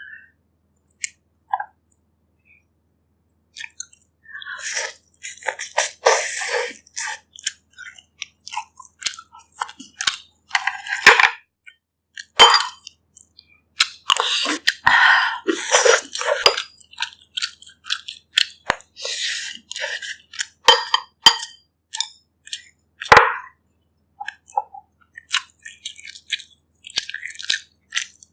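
Close-up eating sounds of pork ribs: irregular, sharp wet chewing and smacking, with a few clicks and clinks. The first few seconds are nearly silent before the chewing starts.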